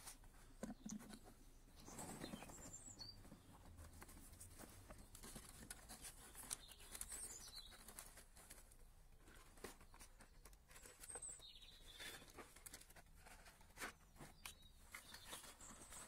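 Faint outdoor ambience: quiet rustling and small clicks of dry twigs and cardboard being handled by gloved hands, with a few faint, brief bird chirps.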